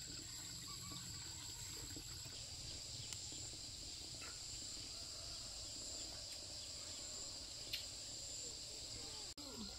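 Steady high-pitched insect chorus, crickets or similar, with a faint low rumble underneath. There is one brief click about eight seconds in, and the sound drops out for an instant near the end.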